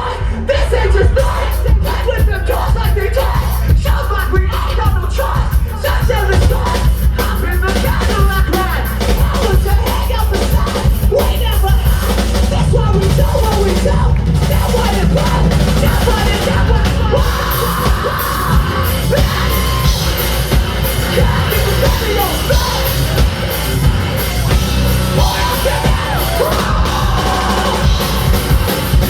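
Live rap-rock band playing, with a vocalist yelling and singing over heavy bass, distorted guitar and drums, loud and continuous.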